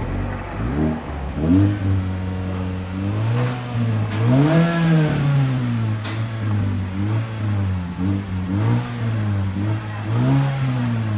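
Mazda3 Skyactiv four-cylinder engine through an aftermarket ProDrager exhaust with only the tips replaced, idling and revved in a series of short throttle blips. The highest rev comes about five seconds in.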